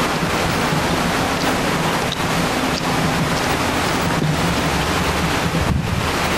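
Wind buffeting a camcorder microphone: a steady, loud rush of noise with only brief slight dips.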